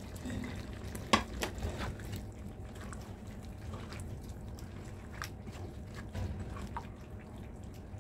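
Spatula pushing sliced bell pepper off a plate into a pan of chicken stew, then stirring through the stew, with scattered sharp clicks of the spatula against the plate and pan, loudest about a second in. The stew simmers softly underneath.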